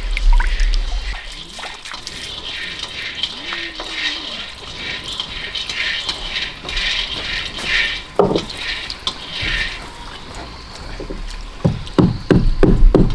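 Water running and splashing as something is washed by hand, in uneven pulses. Near the end comes a fast run of sharp knocking strikes, about four a second.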